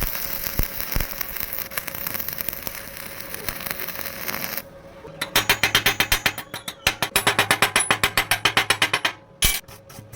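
Metalworking noise: steady crackling and hissing for about four and a half seconds, then, after a short pause, a fast, even run of sharp strikes, about seven a second, lasting about four seconds.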